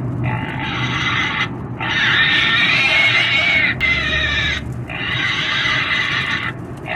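Pig squealing: three long, high-pitched screams with short breaks between them.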